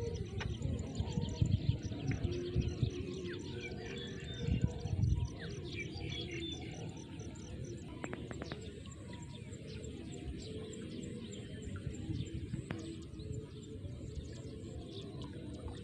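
Small birds chirping and calling in short notes, with low rumbling thumps during the first five seconds.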